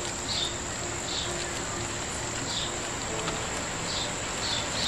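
Short high chirps from a small animal, repeating at uneven gaps of about a second, over steady outdoor background noise.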